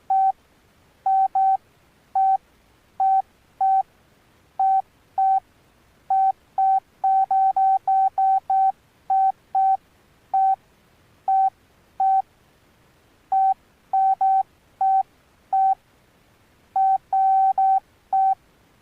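Alcatel OneTouch Retro 2017B flip phone's keypad beeping as keys are pressed: short beeps, all at one pitch, coming at irregular intervals with a quick run of presses in the middle.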